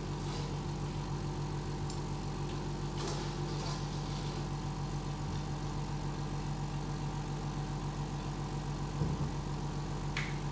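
A motor that started just before runs at a steady low hum with an even pitch, with a few faint clicks and clinks on top.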